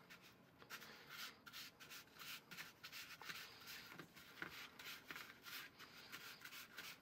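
Small spatula scraping and mashing shortening into sugar in a plastic bowl: faint, quick, repeated scraping strokes as the sugar and shortening are creamed together.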